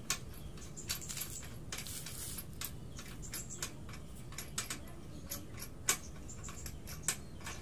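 Irregular light metallic clicks and taps as a rear shock absorber is worked by hand onto its upper mount on a scooter, with a sharper knock about six seconds in.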